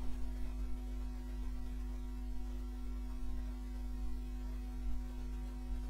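Steady electrical mains hum: a low drone with a few steady higher tones over it, unchanging throughout.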